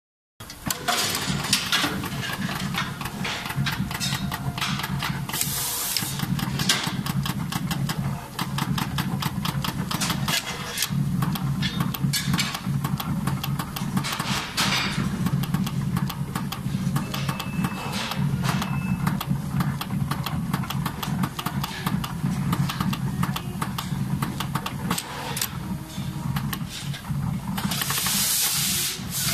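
Automatic 12-colour PVC label dispensing machine running: a steady low motor hum under fast, dense clicking of its pneumatic solenoid valves and dispensing heads. Short hisses of air come about five seconds in, mid-way and near the end.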